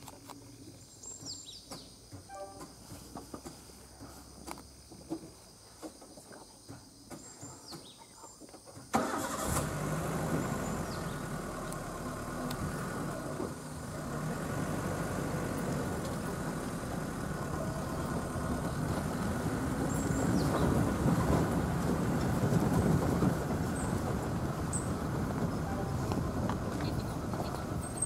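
Faint bird chirps over a quiet background, then about nine seconds in a vehicle engine starts suddenly and runs steadily, growing a little louder later on.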